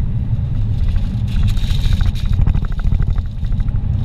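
Steady low rumble of a car driving at speed on a paved highway, heard from inside the cabin: tyre and engine noise.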